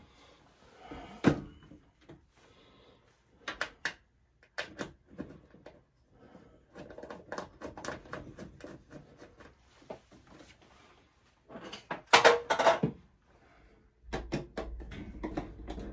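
Metal electrical service-panel cover being handled and fitted into place: scattered knocks, scrapes and rattles, with a louder clatter about twelve seconds in.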